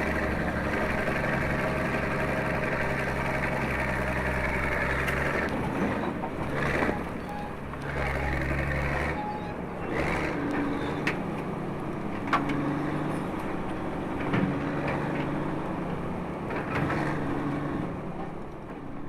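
A large motor vehicle's engine running, its low drone shifting in pitch and level a few times, with scattered clicks and knocks.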